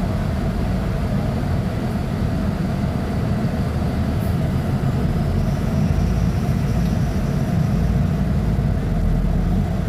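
Diesel engine of a Mercedes-Benz O500U city bus running steadily, a dense low rumble that grows slightly louder about six seconds in. A faint high whine comes in about five seconds in.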